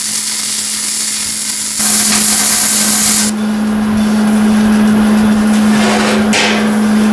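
Wire-feed welder arc crackling and sizzling as angle iron is tack-welded inside a steel drum, stopping about three seconds in, over a steady low hum.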